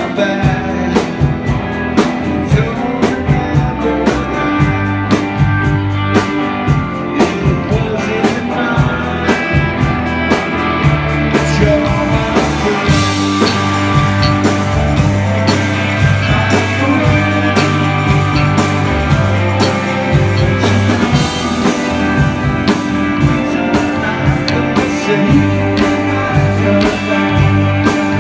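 Live rock band playing: electric guitars, bass guitar and drums, with a man singing. The sound fills out with more high, bright cymbal-like wash about eleven seconds in.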